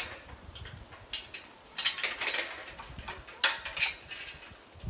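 Steel round-pen panels and their connecting pin clanking and clinking as the panels are joined: a handful of sharp metal knocks, the loudest about three and a half seconds in.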